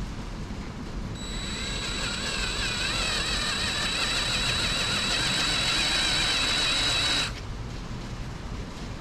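Electric drill running under load as it bores into the cast-iron engine block along the crack: a steady high whine that builds from about a second in, wavers as the bit cuts, and stops abruptly after about six seconds.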